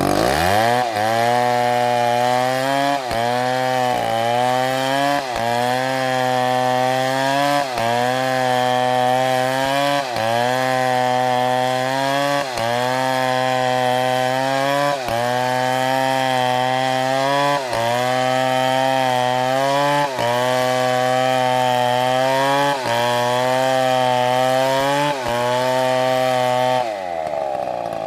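Chainsaw running under load through wood, starting just after the beginning. Its engine note dips and recovers about every two and a half seconds, then it stops near the end.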